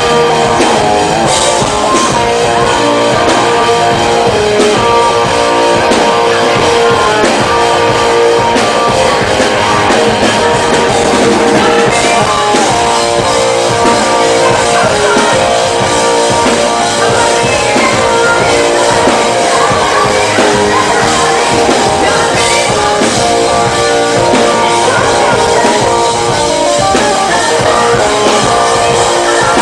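Live rock band playing loudly, with electric guitar, drum kit and a female lead singer, recorded from within the audience.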